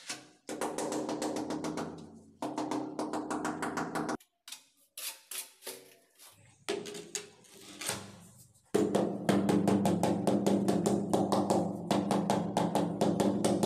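Rubber mallet tapping rapidly on large ceramic tiles to bed them into mortar, a fast drum-like patter in long runs. In the middle the tapping gives way to slower, scattered knocks and scrapes of mortar being spread.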